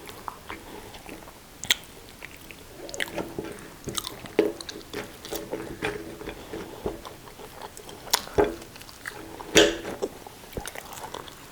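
People chewing and biting into fries and sausage, with scattered wet mouth smacks and small clicks.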